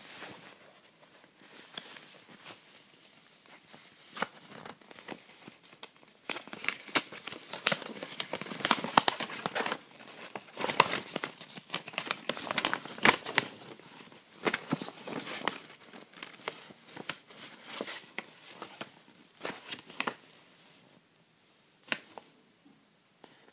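A folded paper instruction sheet rustling as it is unfolded and handled, loudest from about six seconds in until about twenty seconds in, with lighter handling noises before it.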